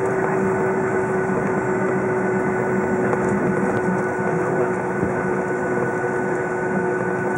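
Boeing 757 cabin noise while taxiing: the jet engines' steady hum with a steady whine on top, unchanging throughout.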